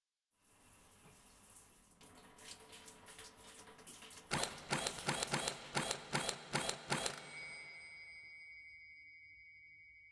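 Foley sound effects: a rushing noise that slowly builds, then a quick run of about ten sharp knocks, ending in a metallic ringing that slowly fades.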